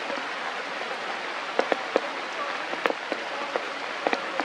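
Rain falling: a steady hiss with scattered sharp drop hits close by.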